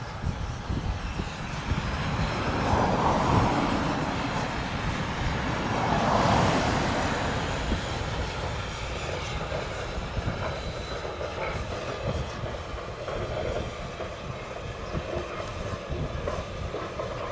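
Steam locomotive hauling a passenger train out of a station, heard at a distance over a steady low rumble. Two swells of louder hiss come in the first half.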